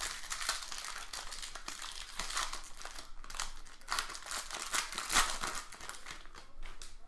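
Plastic-foil wrappers of Bowman Draft baseball card packs crinkling and crackling as packs are torn open and handled. The crackle runs without a break, with a few louder crinkles about four and five seconds in.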